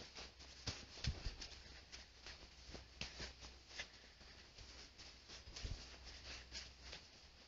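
Faint, irregular footsteps crunching on loose sand and dirt, with a few dull low thumps.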